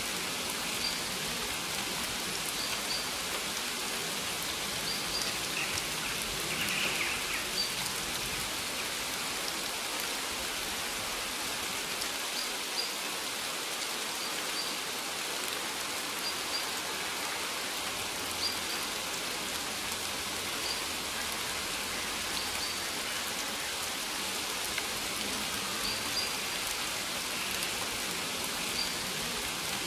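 Steady rain falling on maize plants, a dense even patter. Faint short high chirps recur every second or two.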